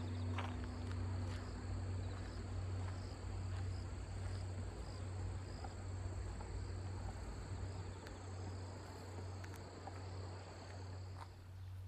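Crickets chirping steadily over the lingering deep hum of a large Buddhist temple bell (beomjong) still sounding after a strike; a higher overtone of the bell fades out within the first second.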